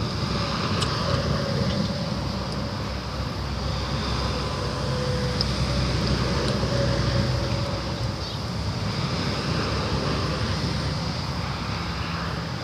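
Steady low rumble of outdoor ambient noise, even throughout.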